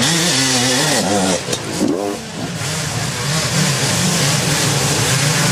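Dirt bike engines revving hard under load as riders climb a steep hill, the pitch rising and falling as the throttle works, with a sharp rise and drop about two seconds in before settling into steadier running.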